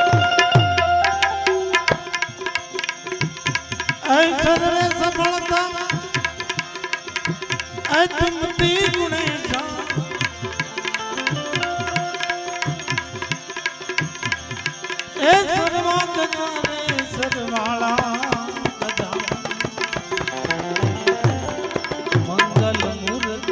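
Gujarati devotional bhajan music: harmonium and small hand cymbals (manjira) over dense percussion, with a man's voice holding long, wavering sung phrases that start about 4, 8 and 15 seconds in.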